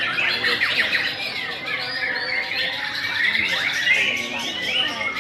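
Several white-rumped shamas (murai batu) singing at once in a dense, continuous tangle of overlapping whistled phrases, chirps and quick pitch glides.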